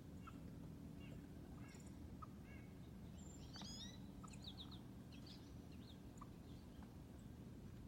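Faint bird calls: scattered short chirps and small rising notes, busiest in the middle, over a low steady hum.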